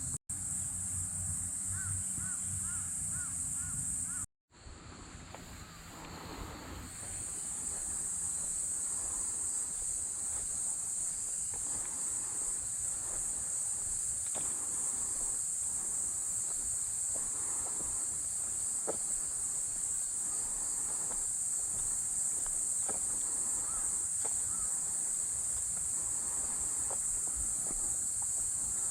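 Insects singing in a steady, high-pitched chorus. It drops out briefly about four seconds in, then builds back up.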